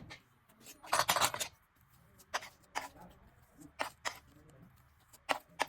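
Clay slime being mixed and pressed by hand: a short squishing noise about a second in, then several sharp separate clicks and pops.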